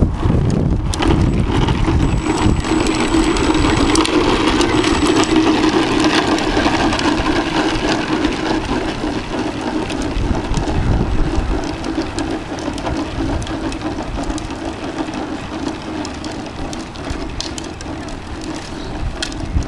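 Hard plastic wheels of a child's ride-on tricycle rolling over asphalt: a continuous rolling rumble that slowly fades as the trike moves away.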